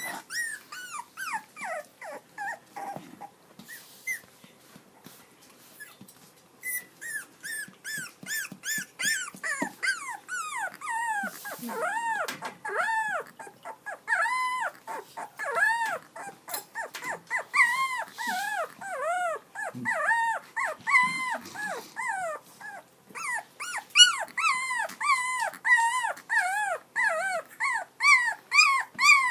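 Dog howling in short cries one after another, several a second, each rising and falling in pitch. After a few seconds of cries there is a brief lull, and then they come thicker and louder.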